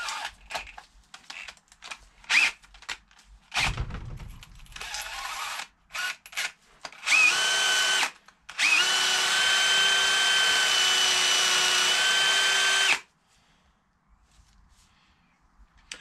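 Cordless drill with a small wire brush cleaning carbon out of a diesel injector body: a few seconds of handling clicks and knocks, then a short run and a steady spin of about four seconds that stops suddenly.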